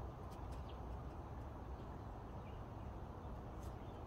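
Faint steady outdoor background noise with a few light clicks.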